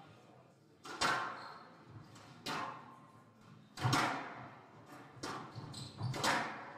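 Squash rally: about five sharp hits of racket on ball, roughly a second to a second and a half apart, each echoing in the enclosed court.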